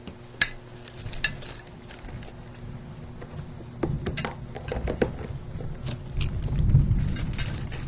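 Metal spoons and forks clinking and scraping against plates as people eat, with sharp clinks about half a second in and a cluster around four to five seconds in. A low rumble builds near the end and is the loudest sound there.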